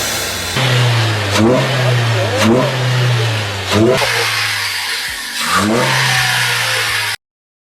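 Car engine fitted with a high-flow air filter being revved in short throttle blips, rising in pitch four times over a steady low running note. The sound cuts off abruptly near the end.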